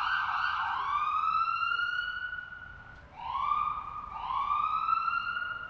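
Ambulance siren wailing: its tone climbs and levels off, over and over. One long rise fades in loudness near the middle, then the rises come quicker, about a second apart.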